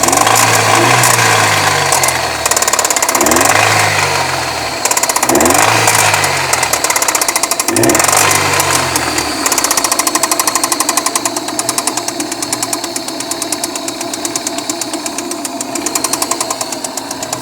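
Daewoo Nexia engine knocking: revved four times in quick blips, the pitch rising and falling back each time, then idling with a rapid, regular knock.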